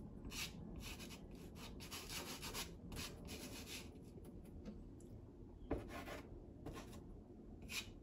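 Soft pastel stick scraping over sanded pastel paper in short back-and-forth strokes. There is a quick run of strokes, then a few spaced-out strokes in the second half.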